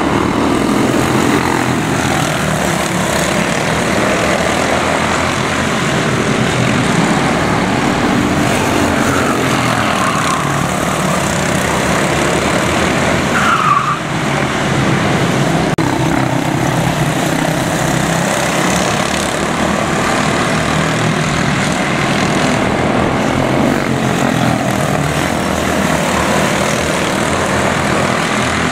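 A pack of quarter midget race cars with single-cylinder Briggs & Stratton Animal four-stroke engines racing around a small oval, a steady loud buzz of many engines, with a brief higher whine about halfway through.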